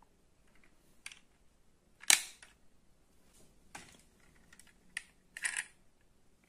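Small die-cast toy cars being handled and set on a wooden tabletop: a few scattered clicks and knocks, the loudest knock about two seconds in and a quick cluster of clicks near the end.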